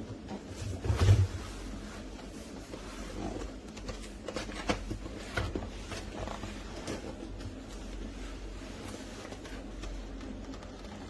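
Handling noises: a heavy thump about a second in, then scattered light knocks and clicks over a low steady hum.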